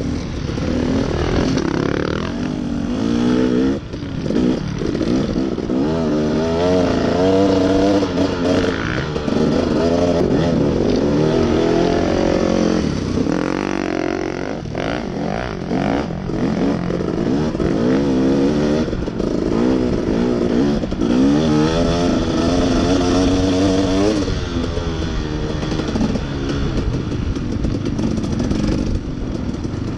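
Dirt bike engine being ridden off-road, revving up and falling back again and again as the rider works the throttle and gears over a rough trail, with some knocks and rattles around the middle.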